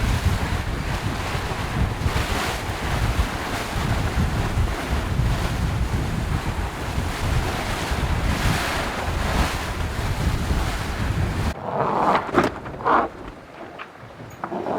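Wind buffeting the microphone and the sea rushing past a racing sailboat under way. About 11.5 s in, the rush cuts off abruptly, leaving a quieter background with a few knocks and short bursts.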